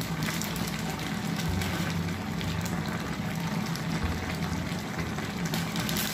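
Vegetable sauce simmering in a pot: a steady sizzling, crackling hiss.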